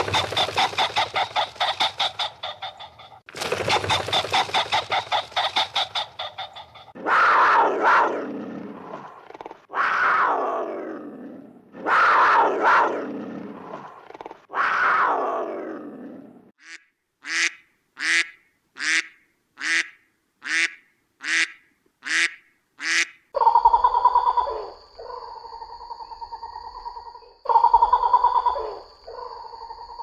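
A run of different farm animal and bird calls, one kind after another. First come two long stretches of rapid, pulsing calls. Then four long calls that each fall in pitch, then eight short, evenly spaced calls, and near the end a steady held tone with a thin high whine over it.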